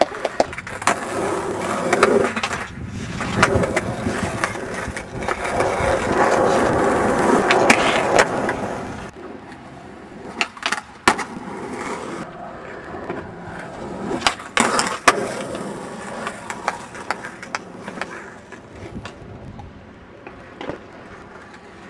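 Skateboard wheels rolling loudly over rough pavement for about the first nine seconds, then quieter rolling broken by sharp clacks and knocks of the board popping and landing, a few of them about a second apart.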